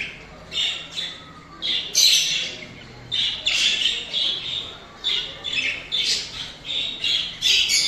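A group of exhibition (English) budgerigars chattering and squawking: an irregular run of short scratchy calls, about two a second, with no break.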